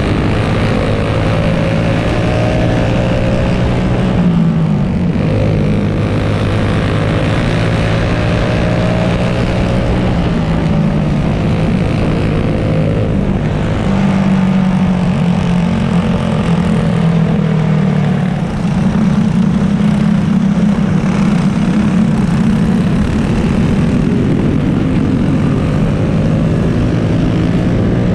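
Single-cylinder four-stroke clone kart engine running hard in a dirt-oval heat race, heard on board, with the other karts' engines around it. The engine note holds steady down the straights and shifts as the kart goes through the turns, with a brief dip about two-thirds of the way in.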